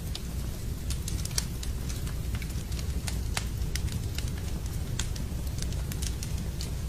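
Wood fire burning in a fireplace: a steady low rumble with sharp crackles and pops scattered irregularly throughout.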